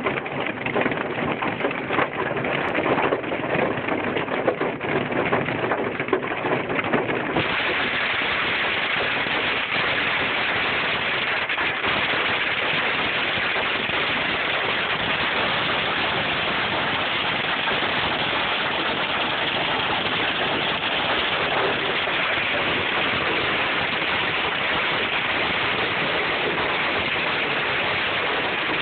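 Hail and rain pelting a car's roof and windshield, heard from inside the car: a dense clatter of impacts for the first several seconds, then an abrupt change about seven seconds in to a steady, even hiss.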